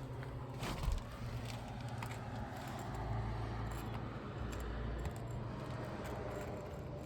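A roofing nail being worked out of brittle asphalt shingles with a metal nail puller: small metallic clinks and scraping, with one sharper click about a second in, over a steady low hum.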